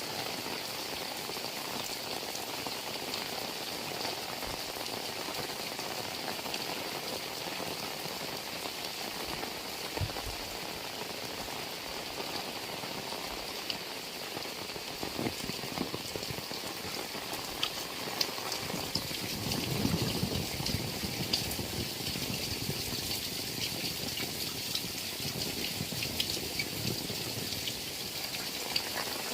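Heavy rain falling steadily, with scattered sharper drop ticks and a somewhat louder patch in the second half.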